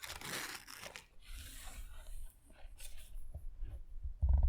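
Plastic and paper packaging of a Blu-ray set being handled and rustled, with a few small clicks and a dull thump near the end.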